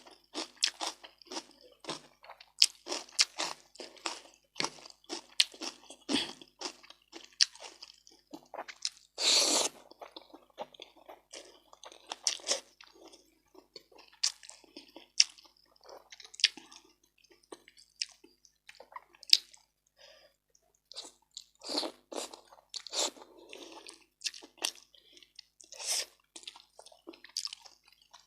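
Close-miked chewing and crunching of a rice-and-curry meal, with many short sharp crunches and wet mouth sounds, and one longer noisy sound about nine seconds in.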